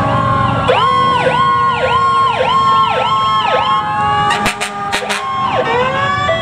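Fire apparatus sirens: an electronic siren yelping, rising and falling about twice a second, over the slow, falling wail of another siren. A few sharp cracks sound about two-thirds of the way in, and a siren winds up again near the end.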